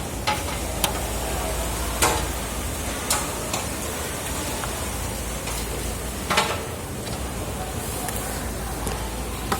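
Steady hiss of background noise with a few scattered sharp clicks and knocks, like handling of a machine and its parts.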